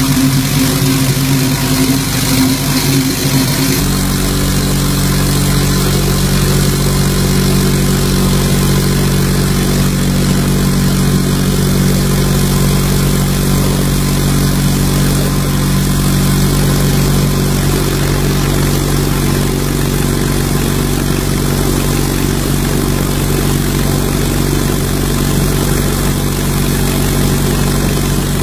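Abrasive blast cabinet running on truck engine covers: a steady hiss of air and grit over a steady machine hum, which changes and grows louder about four seconds in.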